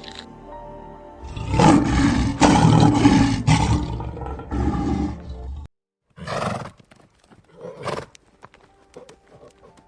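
A big cat roaring in several loud, rough pulses for about four seconds, cutting off abruptly. After a brief gap, a horse snorts and whinnies in short bursts, with hooves clopping.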